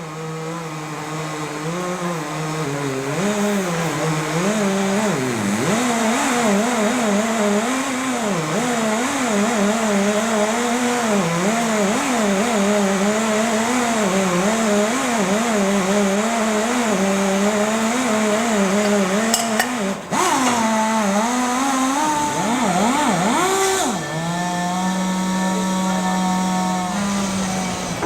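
Power tool motor of a tube expander rolling boiler tubes into the smokebox tube plate, its pitch wavering up and down as the load changes. It cuts out briefly about twenty seconds in, then settles to a steady, lower hum for a few seconds near the end.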